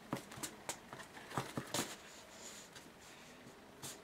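Handling noise from a fabric or leather zippered bag: a quick run of light taps and rustles, then quieter, with one more tap near the end.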